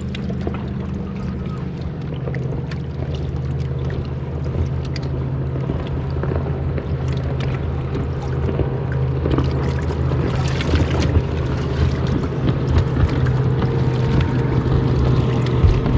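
A boat's outboard motor running steadily with a low drone, along with splashing and wind noise on the microphone that grow louder in the second half.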